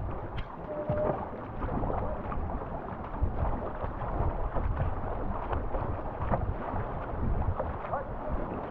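Fast river water rushing and splashing around a tandem canoe as it is paddled through a riffle, with paddle strokes dipping and wind buffeting the microphone in a low rumble.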